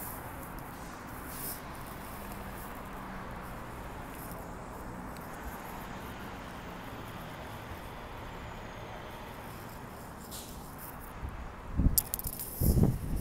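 Steady city street traffic noise with a faint engine hum. Near the end, wind buffets the microphone in loud, uneven gusts, with a sharp click.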